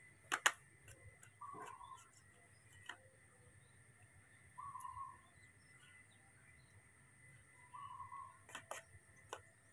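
Spoon clicking against a small feeding bowl while a baby monkey is spoon-fed porridge, a sharp pair of clicks near the start and a few more near the end. Three faint short chirps sound a few seconds apart.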